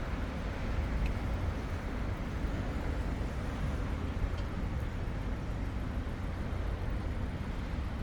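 Steady city traffic noise, a continuous rumble of passing cars with no single event standing out.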